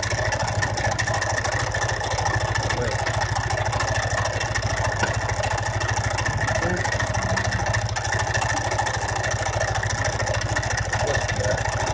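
Engine idling steadily with a fast, even pulsing beat, a running noise that is presented as strange.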